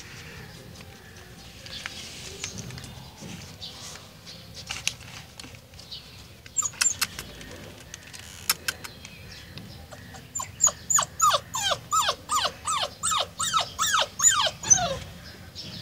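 Golden retriever puppy whimpering: a quick run of short whines that each fall in pitch, about three a second, over the last five seconds, with a few brief squeaks before it.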